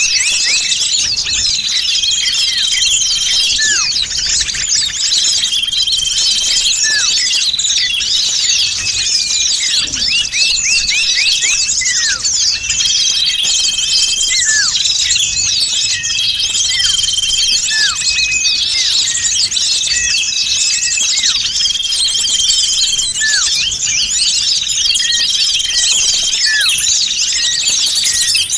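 Bird-trapping lure recording of a dense chorus of many small songbirds chirping and twittering at once, with a short level whistle repeating about every two seconds and scattered falling notes.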